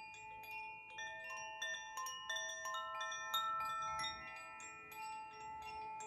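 Two hand-held bamboo-tube wind chimes swayed gently, giving light, irregular strikes at many different pitches, several a second. Each note rings on and overlaps the others.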